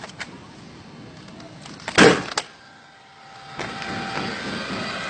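A gas-powered concrete nail gun fires once, a single sharp bang about two seconds in as it drives a nail into asphalt, with a smaller click just after. From about three and a half seconds in, a steady whirring drone builds and carries on.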